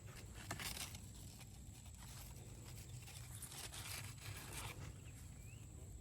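Rustling and crinkling of garden plant leaves being handled, in a few short bursts about half a second in and again around four seconds in.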